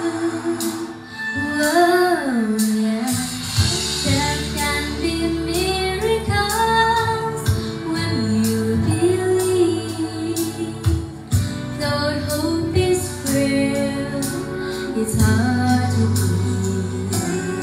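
A young girl singing a melody solo into a handheld microphone over an instrumental backing with a bass line and light percussion.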